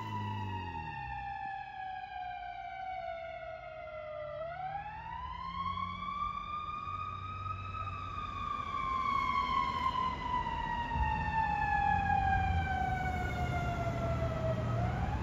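Ambulance siren on a slow wail: the pitch falls for about four seconds, climbs for about three, then sinks slowly for about seven and starts to climb again at the end. A low vehicle and traffic rumble runs beneath it and grows louder in the second half.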